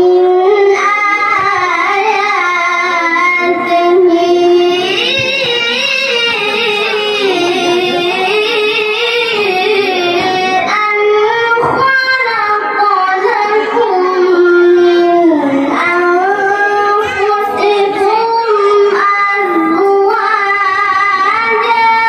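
A young boy's voice reciting the Quran in melodic tilawah style into a handheld microphone: long held, high notes with wavering ornaments, broken by a short pause for breath a little before the middle.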